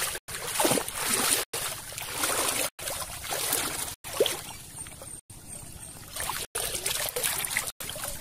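Water sloshing and splashing as a person wades chest-deep through a river, in uneven swells.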